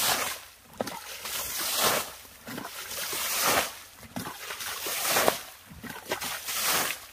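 Muddy water being scooped with a plastic basin and thrown out by hand, a splash and slosh about every one and a half to two seconds, as a creek pool is bailed dry.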